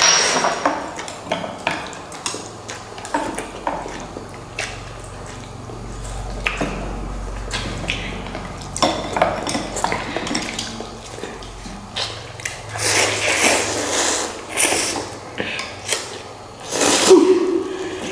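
Eating utensils clicking and scraping against bowls of noodles, in scattered sharp knocks, with a few longer noisy stretches of eating near the middle and toward the end.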